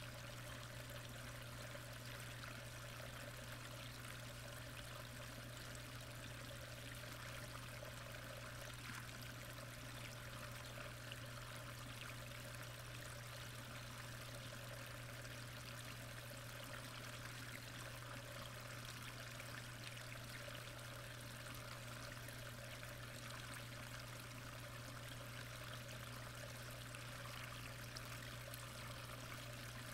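Steady rush of moving water heard underwater in a pond, with a constant low hum beneath it.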